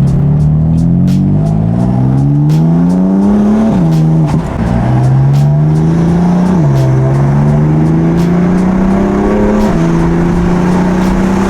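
BMW F82 M4's twin-turbo inline-six, with catless downpipes and a tune, pulling up through the gears. The exhaust note rises in pitch and drops sharply at three upshifts, about four, seven and ten seconds in, then holds a steady tone.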